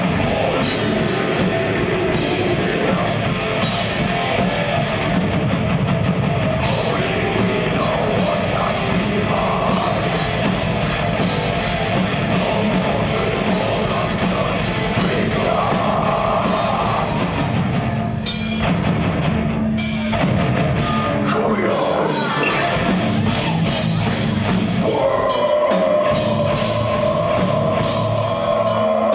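Live progressive death metal: distorted electric guitars over dense, fast drumming, with a short break in the drums and guitars about two-thirds of the way through.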